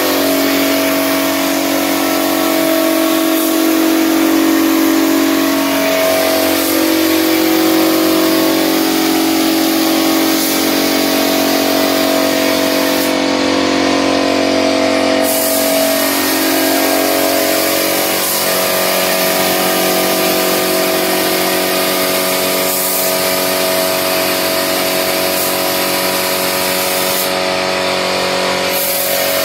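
Air spray gun hissing as it sprays thinned brown wood polish, over the steady hum of the air compressor feeding it. The spray stops briefly twice, about halfway through and again near the end, while the hum runs on.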